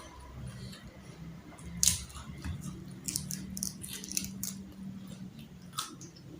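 Close-up eating sounds: scattered sharp clicks and crunches, the loudest about two seconds in and a quick cluster around three to four seconds, over a low steady hum.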